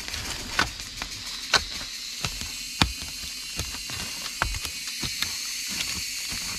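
A long-bladed knife digging and chopping into stony forest soil: irregular sharp strikes about every half second to a second, with scraping of earth between them. A steady high hiss runs behind.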